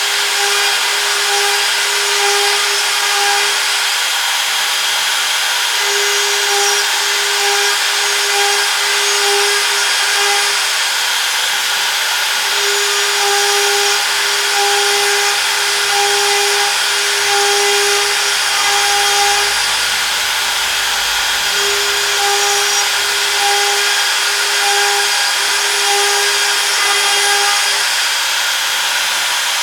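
CNC router running and cutting: a steady, loud spindle and cutting noise, with a mid-pitched tone that keeps switching on and off in short stretches as the machine moves.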